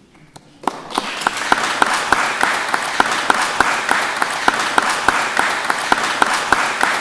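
Audience applauding in a hall: a few scattered claps, then many hands clapping together, steady and dense, from about a second in.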